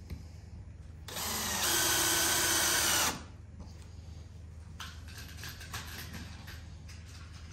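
Cordless drill/driver running for about two seconds, driving a screw through a metal hinge plate into a seat base; it gets louder about half a second in as the screw bites, then stops suddenly. A few light clicks of handling follow.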